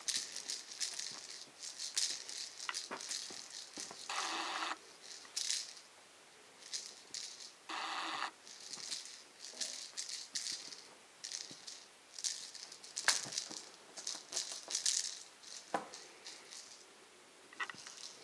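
A plastic ball cat toy with feathers rattling in short, irregular bursts as a kitten bats at it.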